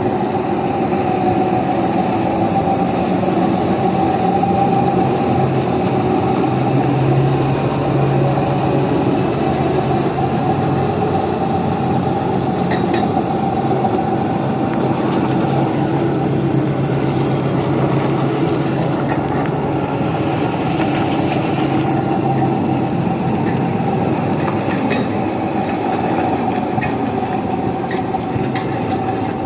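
Engine of a tractor-based mobile welding unit running at a steady speed, a continuous drone with a few light clicks scattered through it.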